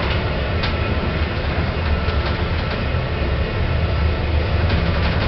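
Passenger lift car travelling between floors, heard from inside the car: a steady low hum and rumble with a few light clicks and rattles. It is a modern replacement lift.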